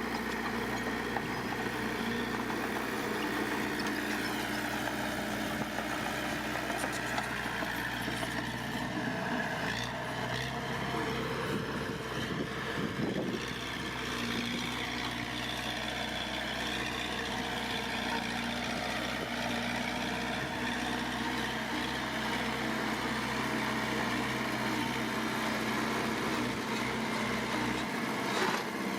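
Heavy diesel engine of earthmoving machinery running steadily at low revs, with a higher tone that slowly wavers up and down. There is a brief louder clatter about halfway through.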